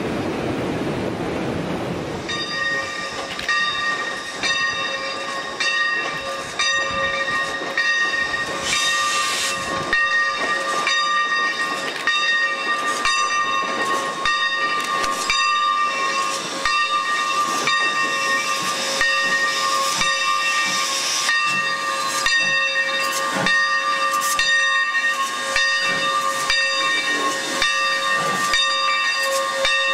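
Steam locomotive No. 7 of the Alberni Pacific Railway hissing steam, with a held whistling sound of several steady tones, cut by regular chuffs as it moves slowly. Before that, about the first two seconds are train cars rumbling over a trestle.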